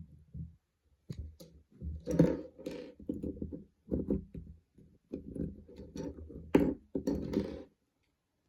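Small 3D-printed plastic model parts being handled and fitted together on a work surface: irregular clicks and taps with rubbing and scraping between them, stopping near the end.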